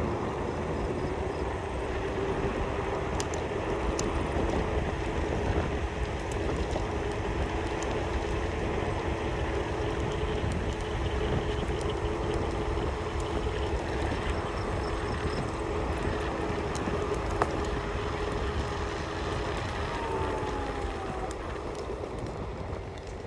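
Continuous rumble of wind and wheels while riding along a paved trail, with a steady hum throughout that wavers and shifts pitch near the end.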